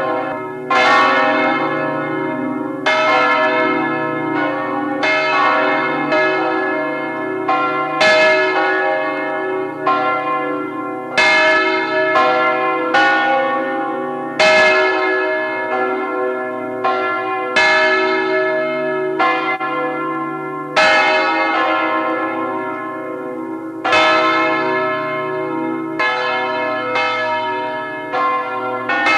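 Full peal of the Liesborn abbey church bells: several bells ringing together, strikes following about once a second in an uneven, overlapping pattern, each tone ringing on under the next.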